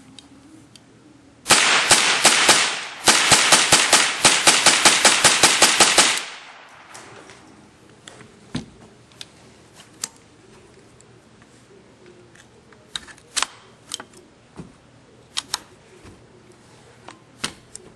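Belt-fed .22 LR rimfire conversion on an AR-15 firing full-auto: a short burst of about seven shots, then a longer burst of about three seconds, at roughly seven rounds a second. A few scattered sharp clicks follow.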